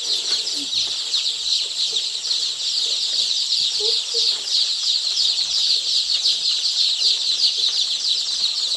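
A large crowd of day-old layer chicks peeping without a break: a dense chorus of many high, short, falling cheeps overlapping one another.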